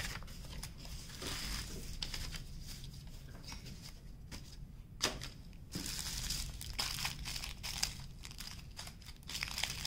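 Handling rustle: a crinkled paper sheet being slid across the table, then a strip of small plastic bags of diamond-painting drills crinkling in the hands, denser in the second half. One sharp tap about five seconds in.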